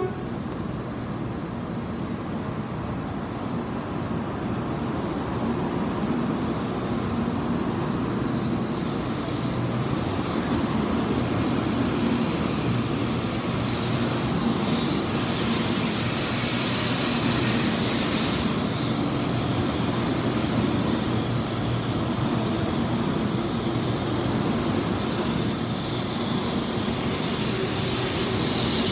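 Taiwan High Speed Rail 700T trainset pulling out of the station, its running noise growing steadily louder as it gathers speed. Thin high whines come and go from about halfway through.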